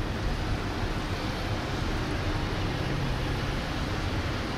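Steady low rumble of a distant Airbus A330-300 jet airliner rolling out along the runway after landing.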